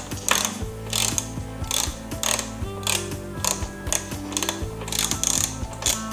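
Ratchet wrench with a 5/16 socket clicking in repeated strokes, about one every half second to second, as it backs out the bolts holding the mower's drive-assembly cover. Background music plays underneath.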